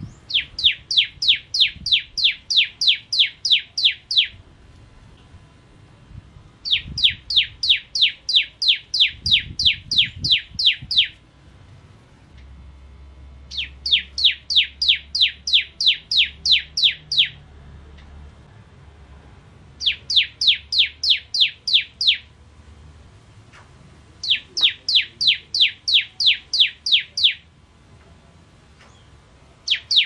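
Bar-winged prinia (ciblek kristal) singing: bouts of rapid, sharp, high notes, about three to four a second, each bout a few seconds long with short pauses between.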